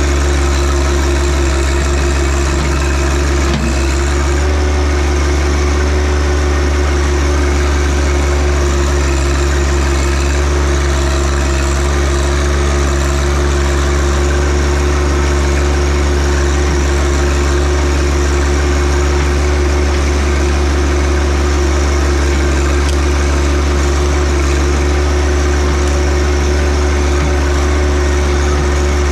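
John Deere 1025R compact tractor's three-cylinder diesel engine running loud and steady at a constant speed.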